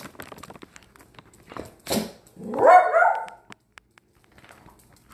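A small dog barks: a sharp bark about two seconds in, then a longer rising one.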